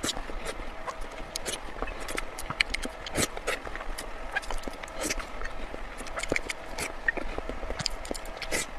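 Close-miked eating sounds: irregular wet clicks and crunches of chewing, several a second.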